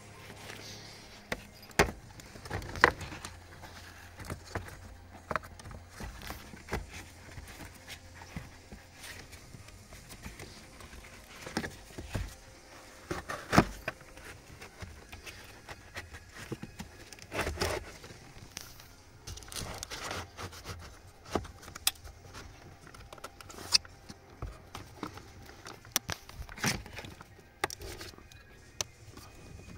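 Irregular clicks, knocks and rustling as a cabin pollen filter's plastic frame is handled and slid into its housing under the dashboard. The strongest knocks come about two and three seconds in, and again near the middle.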